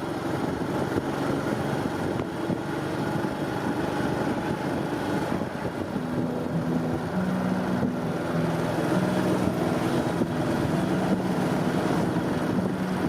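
Honda Super Cub 110's small single-cylinder four-stroke engine running while riding, its hum shifting pitch about halfway through, with wind buffeting the microphone.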